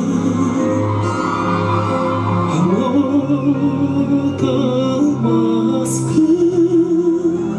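Live Kazakh-language pop ballad: a male singer holds long, soft notes with vibrato over a band accompaniment.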